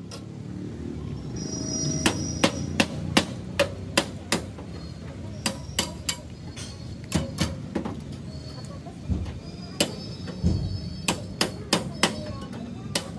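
Hand-held hammer striking the crumpled sheet-metal roof of a crash-damaged truck cab: sharp metallic blows in irregular runs, starting about two seconds in.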